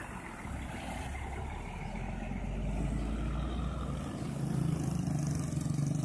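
Intercity coach's engine rumbling as it passes close by, followed about four seconds in by motorcycle engines approaching and growing louder.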